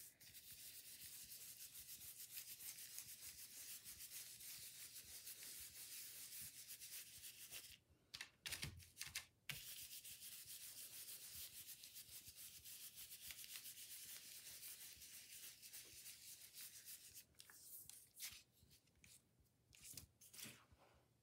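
Round stencil brush scrubbing paint through a plastic stencil onto paper in rapid short strokes, a faint hissing rub. It breaks off about 8 seconds in with two or three light knocks, resumes, and thins out to scattered strokes near the end.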